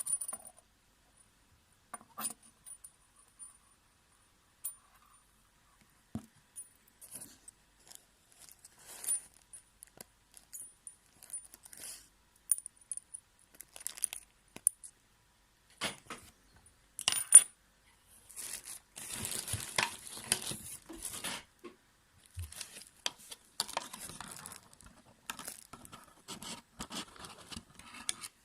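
Small scattered clicks and light metallic clinks from handling fishing lures and their packaging, with a few seconds of denser rustling a little past the middle.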